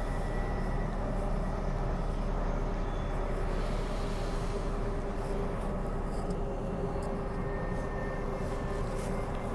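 Transperth Bombardier B-series electric multiple unit running along the line: a steady rumble of wheels on rail, with a steady hum from the traction equipment.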